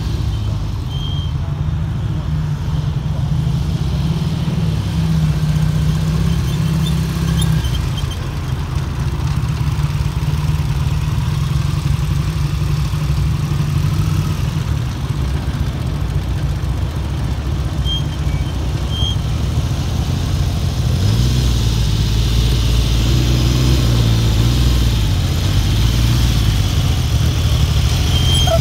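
Motorcycle engine running at a steady idle, its note dropping slightly about a quarter of the way in and becoming louder and deeper for the last third.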